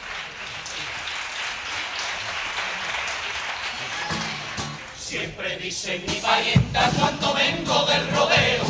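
Theatre audience applauding and cheering, then about five seconds in a carnival murga starts up: a group of male voices singing together over strummed acoustic guitar.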